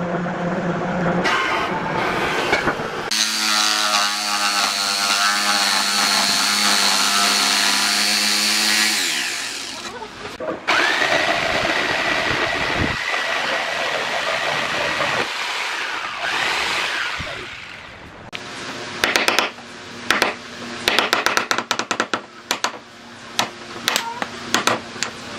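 Makita 4328 jigsaw running and cutting through a wooden board in two long passes, each with a steady whine. Later, a quick run of sharp knocks as a chisel chops out a notch in the wood.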